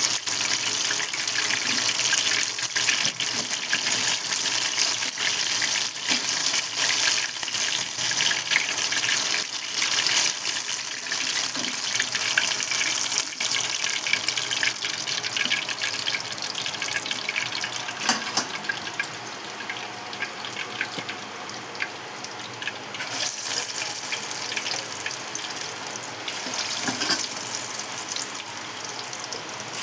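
Chicken lollipops deep-frying in hot oil: a steady sizzle with many fine crackles, easing a little about two-thirds of the way through before picking up again.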